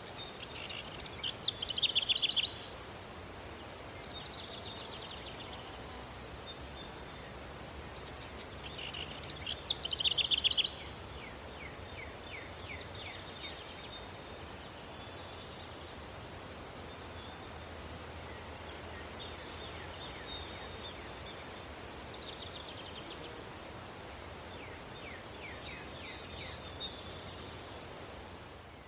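Birds singing over a steady low city hum: two loud songs of rapid repeated high notes, each swelling for about two seconds and then stopping abruptly, with fainter calls in between.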